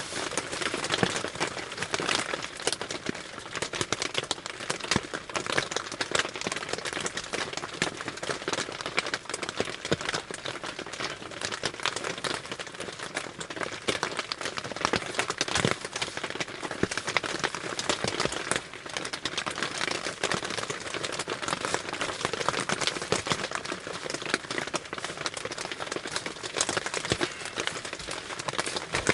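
Rain pattering steadily on a tarp shelter: a dense, irregular patter of drops with no let-up.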